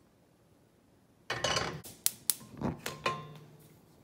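Cast iron skillet put down on a gas stove's cast iron grate: a scrape about a second in, then several sharp metal clanks and knocks that die away.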